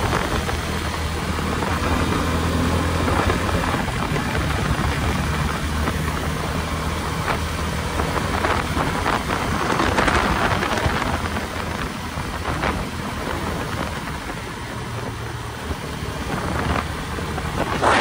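Motorcycle engine running steadily at cruising speed, under rushing wind noise on the microphone.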